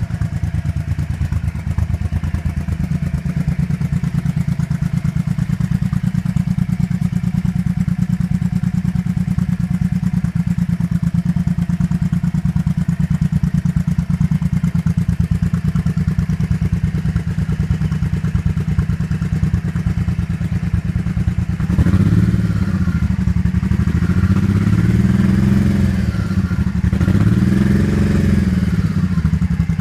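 Honda Shadow Spirit's V-twin engine idling steadily. About three-quarters of the way through, the throttle is blipped three times, each rev rising and falling back to idle.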